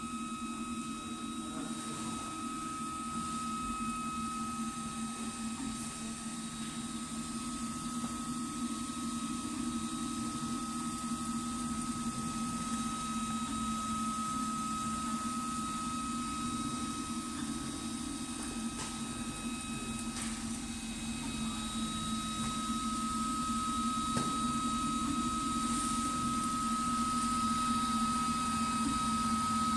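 MINGDA MD-4C FDM 3D printer running while it prints: a steady mechanical hum of motors and fans with a constant high whine, growing slightly louder over the stretch.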